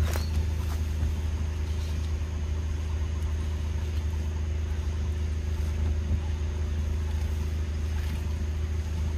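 A steady low motor hum, like an engine running without change, with a faint short chirp right at the start.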